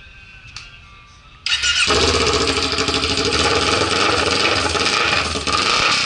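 Kawasaki Ninja 400's parallel-twin engine starting suddenly about a second and a half in and then running loudly with no muffler, the Akrapovic silencer pulled off so it exhausts through open header pipes.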